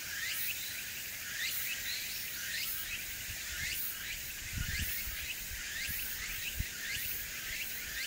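Cicadas calling in a steady chorus: a short rising chirp repeated about twice a second over a continuous high buzz. A few soft low thumps come around the middle.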